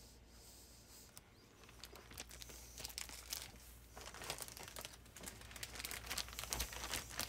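Plastic packaging being handled, crinkling and rustling in irregular crackles that start after about a second and grow busier and louder toward the end.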